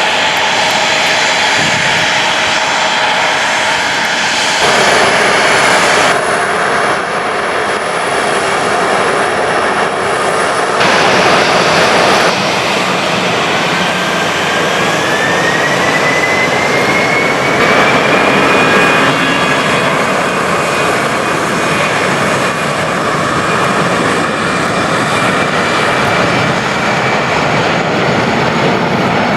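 Jet airliner engines running loudly, the sound changing abruptly several times. Midway a whine rises steadily in pitch and then holds, as the engines spool up.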